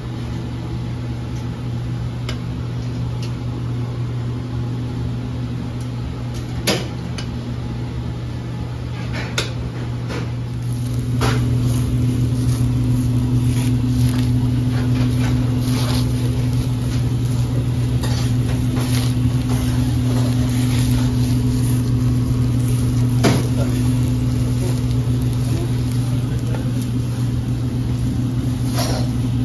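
Steady low mechanical hum that gets louder about ten seconds in, with a few sharp clicks or knocks over it.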